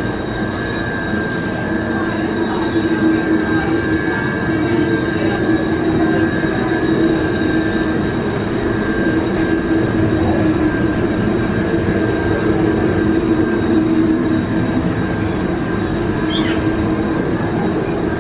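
Steady, loud machine-like drone: a rushing noise with a few held tones, unchanging throughout.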